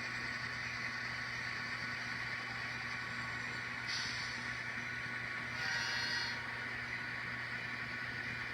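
Model diesel locomotive's sound-decoder engine sound running steadily, blended with the steady hum of a house furnace blower and air conditioner at almost the same pitch; short hisses come about four and six seconds in.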